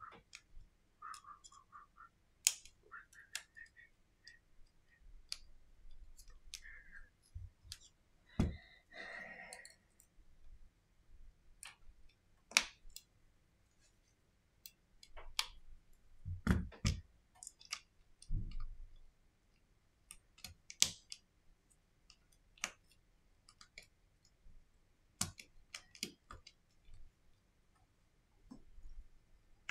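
Irregular small clicks and taps, with a few louder knocks among them, from hands working on the internals of an opened Redmi Note 9 Pro smartphone with a small screwdriver.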